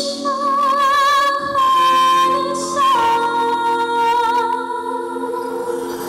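Amplified live singing: singers hold a long note together, with vibrato, then all step down to a lower held note about halfway through.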